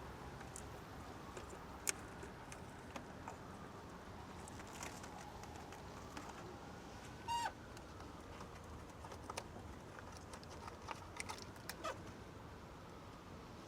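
Faint scattered light clicks and taps, like fingers on a phone screen or keys, with one short squeak about seven seconds in.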